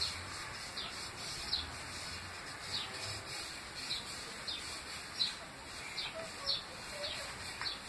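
Fingers rubbing paint across a canvas board, with short, high, falling chirps that recur every half second to a second.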